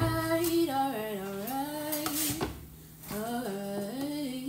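A woman singing or humming a tune without clear words, in two phrases with long held notes that slide between pitches.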